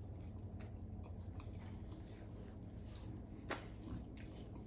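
Faint chewing and mouth sounds of someone eating close to the microphone, with small clicks and one sharper click about three and a half seconds in, over a low steady hum.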